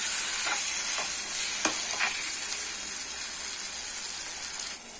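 Chicken gravy sizzling in a hot nonstick pan with water just added, stirred with a steel spoon that scrapes the pan a few times in the first two seconds. The sizzle drops away near the end.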